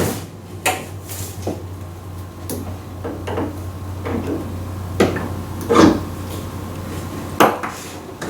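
Scattered clicks, taps and knocks of a welder's ground cable and its connector being handled and fitted to the machine, with a handful of louder knocks, over a low steady hum.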